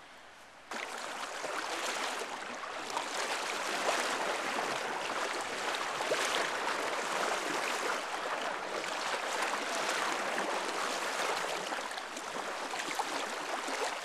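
River water splashing and swishing around the legs of someone wading through the current, a dense steady rush that starts suddenly about a second in.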